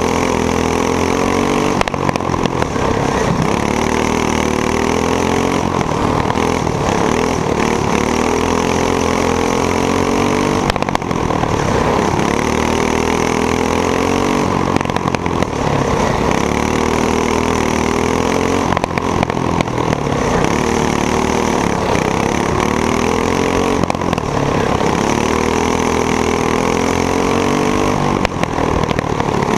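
Single-cylinder box stock go-kart engine at racing speed, heard from the driver's seat: its revs climb along each straight and drop back going into each turn, about every four seconds, lap after lap.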